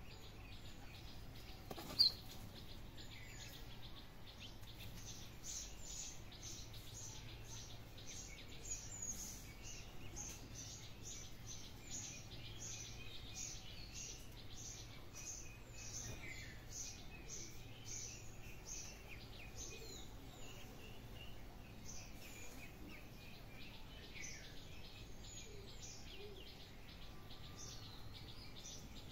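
Ducklings peeping: a run of short, high, downward-sliding chirps at about two or three a second, growing sparser in the second half. A single sharp click sounds about two seconds in, over a faint steady low hum.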